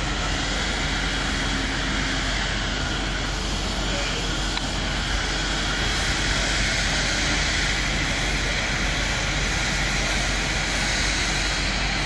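Compressed air foam discharging from a firefighting hose nozzle, a steady rushing hiss that runs without a break.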